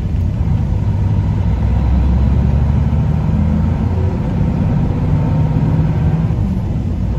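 5.9 L 12-valve Cummins turbo diesel in a 1994 Dodge Ram 3500, running steadily as the truck drives, heard from inside the cab. The low engine note changes pitch a couple of times, about two seconds in and again near the middle.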